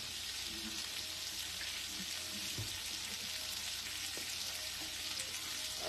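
Lightly breaded chicken pieces frying in butter in a pan over high heat: a steady sizzle.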